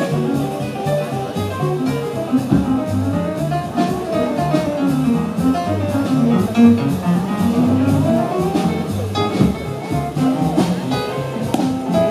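A jazz big band playing live, with saxophones, trumpets and trombones over bass, and a quick melodic line winding up and down through the middle of the passage.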